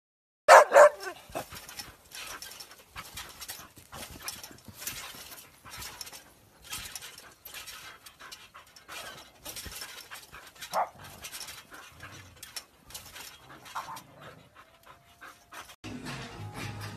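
A dog panting in short, irregular breaths, with one loud, short call from a dog about half a second in.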